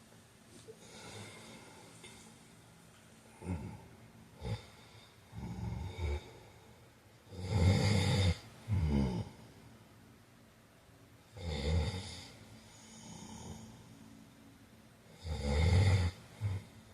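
A man snoring in his sleep: loud snores come about every four seconds, the loudest about halfway through, with a few short snorts early on and quieter breaths between.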